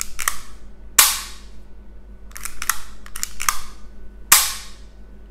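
Spring-loaded prostate biopsy gun being cocked with a few quick clicks and then fired with a sharp snap, twice: one snap about a second in, the second about four seconds in. This snap is the sound of the needle shooting into the prostate to take a tissue core.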